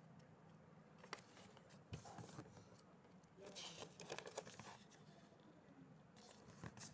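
Faint rustling and a few soft clicks of a sheet of origami paper being handled, folded and creased by hand, with a longer patch of rustling about halfway through.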